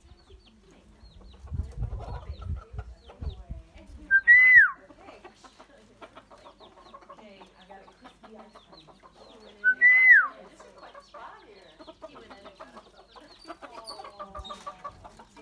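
A myna bird gives two loud whistled calls about five seconds apart. Each is a short note followed by a whistle that rises and then falls. Between them come soft chattering calls, and there are low dull thuds near the start.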